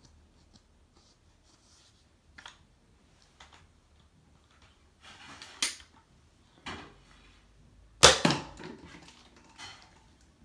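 Toy foam-dart blaster firing: about half a dozen separate sharp shots, the loudest about eight seconds in.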